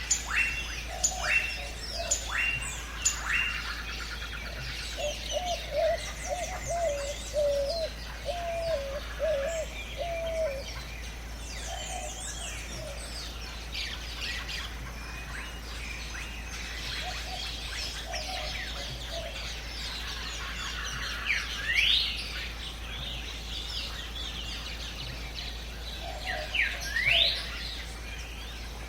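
Jungle ambience of many birds calling: quick falling chirps at first, a lower wavering call from about five to ten seconds in, and two loud rising whistles later on.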